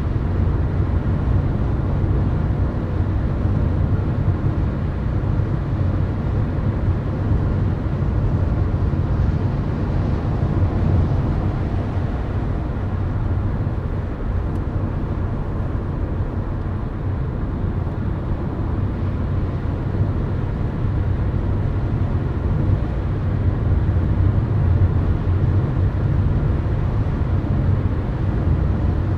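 Steady low road and tyre rumble of a car cruising at highway speed, heard from inside the cabin.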